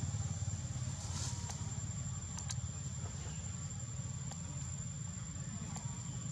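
Outdoor ambience: a steady low rumble under one thin, steady high-pitched whine, with a few faint clicks.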